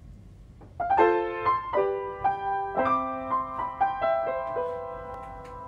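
Intro music: a short melody of ringing notes that starts about a second in and slowly dies away.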